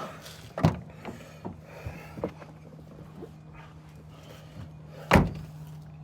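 Two heavy thunks, one about half a second in and one near the end, among lighter knocks and clicks, over a steady low hum.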